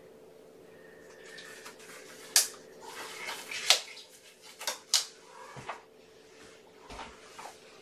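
Handling noises from cleaning up cat droppings: a few sharp clicks and rustles, the loudest about two and a half, four and five seconds in, over a faint steady hum.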